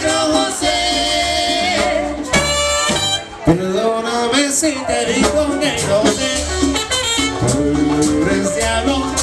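Cumbia band playing with horns and a lead singer: a held horn chord, a brief break about three seconds in, then the voice comes back in over the band.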